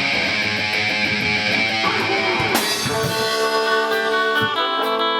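A band playing an instrumental passage between sung lines, led by guitar with drums. About two and a half seconds in, the texture changes to clearer held guitar notes.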